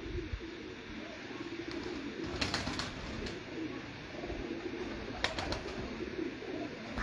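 Domestic pigeons cooing, a low repeated murmur, with a couple of brief sharp clicks about two and a half and five seconds in.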